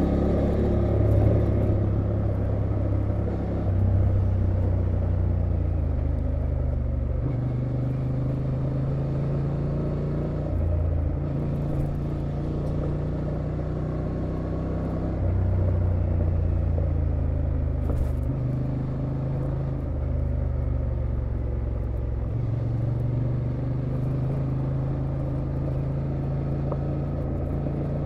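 Honda XL750 Transalp's 755 cc parallel-twin engine running at a steady cruise over a gravel road, its note stepping up and down every few seconds as the throttle opens and closes.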